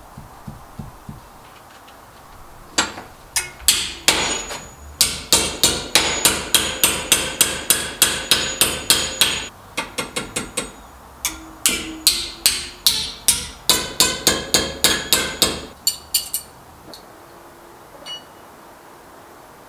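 Hammer blows on a flat steel bracket clamped in a bench vice: rapid ringing metal strikes, about three a second, in two runs with a short pause between.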